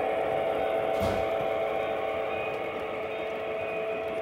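Lionel O-scale model trains running on the layout: a steady electric hum and track rumble, with a single click about a second in.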